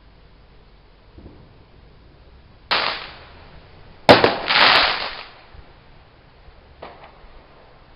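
Fireworks going off: a bang about three seconds in, then a louder, sharp bang a second later followed by about a second of further bursts, and a faint pop near the end.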